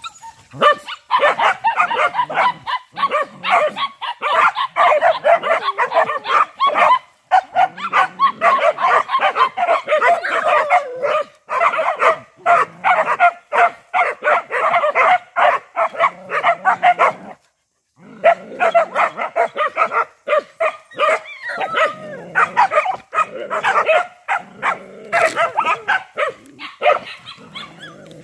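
Several small dogs barking excitedly at a young snake on the ground: rapid, high barks that come almost without a break, with a short pause about two-thirds of the way through.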